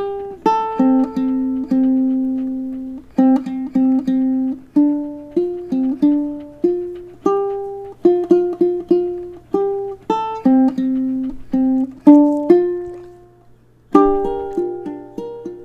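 Ukulele playing a melody of single plucked notes, each ringing and fading. There is a brief pause near the end before the tune picks up again.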